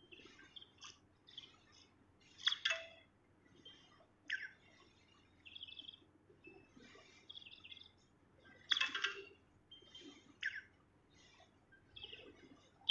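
A songbird singing in short, irregular bursts of sharp chirps and quick falling notes, loudest about two and a half seconds in and again near nine seconds in.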